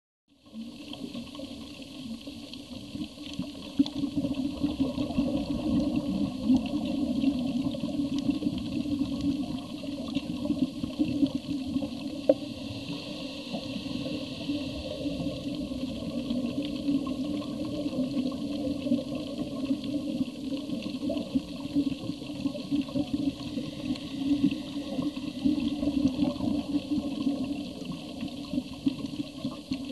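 Steady underwater water noise picked up by a submerged camera, a dense low rush with scattered small clicks.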